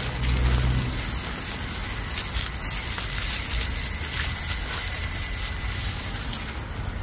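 Axial Capra RC rock crawler crawling over railroad ballast: a steady crackle of small stones crunching and clicking under its tires. A brief low rumble comes in the first second.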